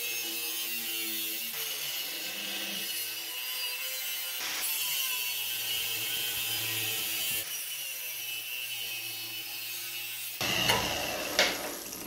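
Angle grinder with a thin cutting disc cutting a notch into steel angle iron held in a vise: a steady whine with a hissing rasp. About ten seconds in the sound turns rougher and louder, and a couple of sharp knocks follow near the end.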